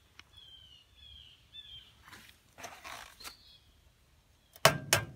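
Two sharp knocks near the end: an egg being rapped against the rim of a small Lodge 6.5-inch cast iron skillet to crack it. Before that come faint high bird chirps and some soft rustling.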